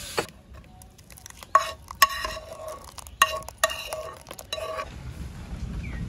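A metal spoon clinking against a cooking pot while coconut-milk sauce is stirred and ladled: about six sharp clinks, each ringing briefly, over the first four or five seconds.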